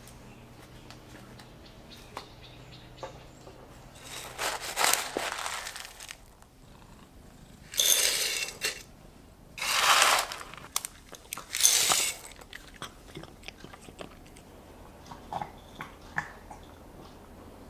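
Dry cat kibble scooped and poured into feeding bowls in several short rattling pours, followed by faint scattered crunching of cats eating the kibble.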